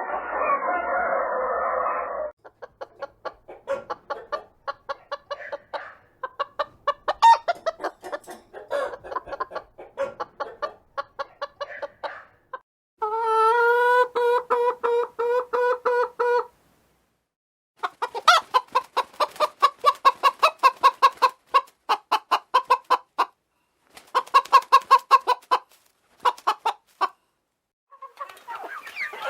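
Domestic chickens clucking in rapid runs of short clucks, broken by brief gaps, with one long, steady drawn-out call of about three and a half seconds in the middle.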